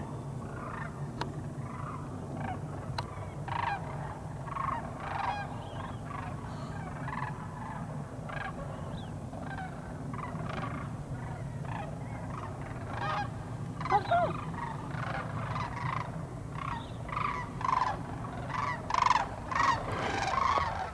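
A flock of sandhill cranes calling in flight, many overlapping rolling calls that grow denser and louder near the end, over a steady low hum.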